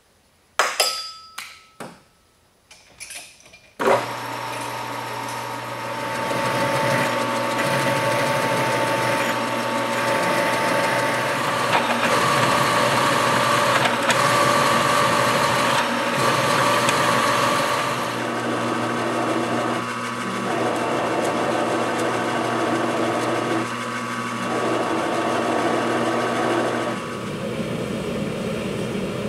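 A few clicks and knocks as a metal lathe's gear levers are set, then the lathe starts at about four seconds and runs steadily with a constant hum and whine while a twist drill in the tailstock bores into a spinning metal bar. Near the end the sound changes to the steady rush of a gas forge burner.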